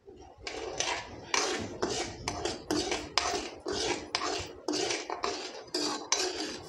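A steel ladle scraping and knocking against a steel kadhai as sugar syrup is stirred nonstop, in a steady rhythm of about three strokes a second.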